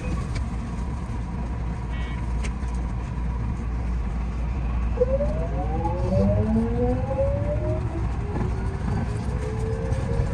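JR West 207 series 1000-subseries electric train pulling away from a station: over a steady low rumble, the traction motors and inverter start to whine about halfway through, several tones rising together in pitch as the train gathers speed, then settling into a steadier tone near the end.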